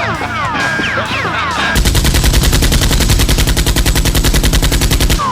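Dubbed-in gunfire sound effects: a string of quick falling zaps, then about two seconds in a long rapid machine-gun burst of evenly spaced shots, more than ten a second, that stops just before the end.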